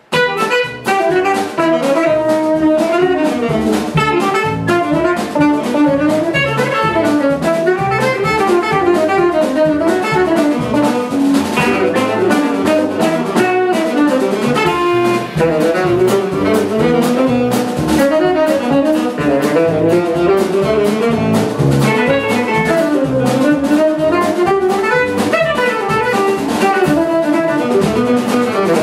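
Live jazz fusion band playing: saxophone, electric guitar and drum kit. The whole band comes in together right at the start.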